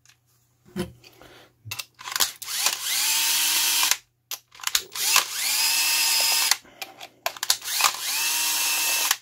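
Bosch cordless drill-driver backing out the housing screws of an outdoor cable-TV tap: three runs of motor whine, each rising in pitch as it spins up and then holding steady, with clicks and knocks between the runs.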